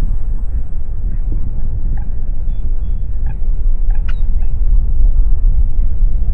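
Wind buffeting the microphone with a heavy, uneven low rumble, while a few birds give short chirps about two, three and four seconds in.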